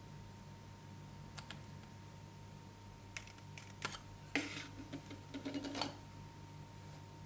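Slime being handled, giving a scattered run of small crackling clicks. They are busiest between about three and six seconds in, over a faint steady hum.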